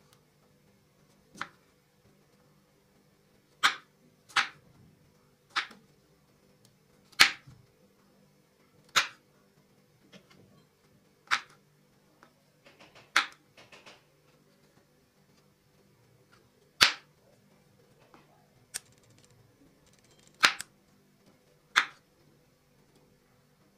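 Kitchen knife cutting broccoli stems into florets on a wooden cutting board: about a dozen sharp, separate knocks and crisp snaps, spaced irregularly a second or two apart, with a short cluster of small crackles in the middle.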